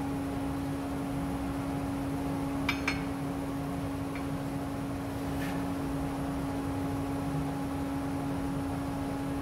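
Steady machine hum with a constant tone. About three seconds in come two light metallic clicks close together as the steel weld coupon is settled on the bend tester's rollers, then a couple of fainter ticks.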